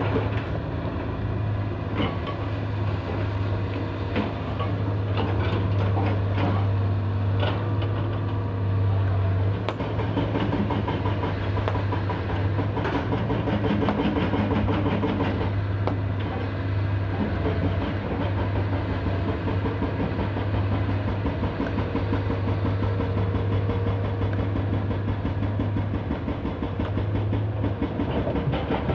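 Heavy diesel engine running steadily under load with a deep, even hum and a rhythmic clatter, with a few sharp knocks in the first several seconds, as of stone being loaded.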